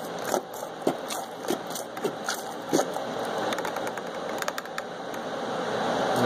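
Turkey baster working in a plastic gallon jug of water, squirting and bubbling the water to mix in pH down and oxygenate it, with irregular clicks and knocks from the baster against the jug.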